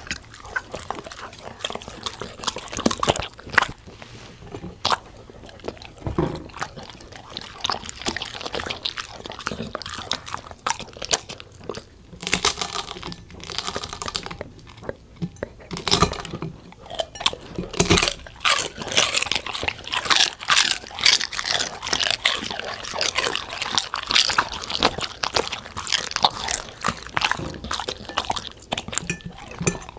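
A Golden Retriever and a Labrador chewing and crunching their food: irregular crisp crunches and bites that come thicker and faster in the second half.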